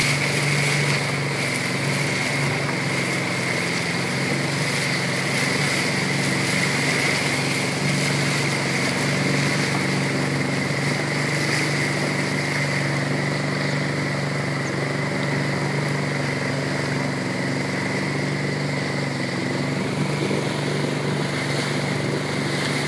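Motorised river boat's engine running steadily, with rushing water.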